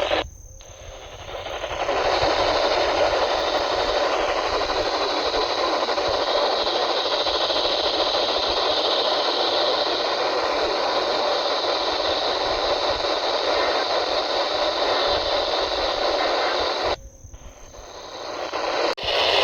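Radio static: a steady hiss from a weather radio receiver on a weak NOAA Weather Radio signal. It cuts out for about a second and a half just after the start and for about two seconds near the end.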